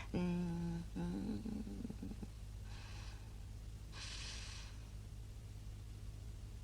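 An elderly woman's voice humming a wavering "mmm", then two short sniffs more than a second apart as she smells a primrose.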